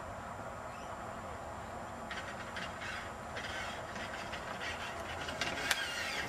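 Radio-controlled golf cart driving across grass: a steady running noise, with clicks and rattles from about two seconds in and one sharp click near the end.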